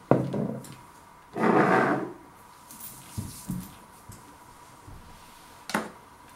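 Handling noises at a kitchen counter: a sharp knock, then a short rustle about a second and a half in, a couple of soft taps, and a click near the end.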